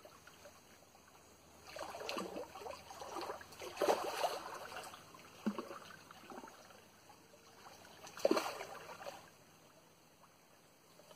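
A large hooked dourado thrashing and splashing at the surface near the bank, in several separate bursts. The loudest splashes come about four seconds in and again about eight seconds in.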